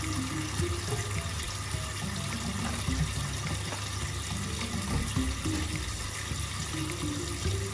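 Kitchen tap running a steady stream of water onto eggs in a stainless steel sink.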